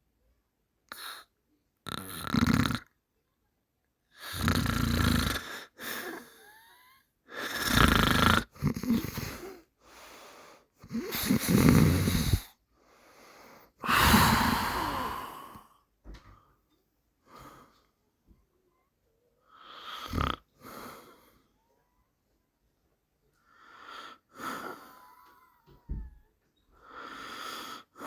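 A person snoring, one loud snore every two or three seconds in the first half and softer ones in the second half, with silence between them.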